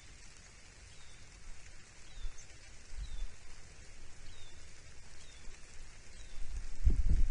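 Outdoor ambience: a small bird gives a short, high, falling chirp about once a second over a steady hiss. Wind rumble on the microphone builds and turns loud near the end.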